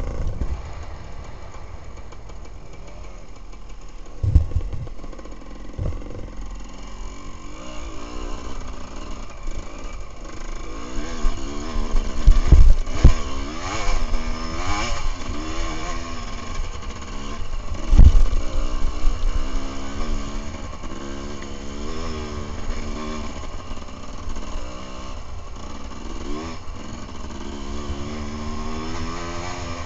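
Enduro motorcycle engine heard from on the bike, revving up and down repeatedly as it is ridden hard along a dirt trail. Heavy thumps come from the bike hitting bumps, several of them, the loudest about eighteen seconds in.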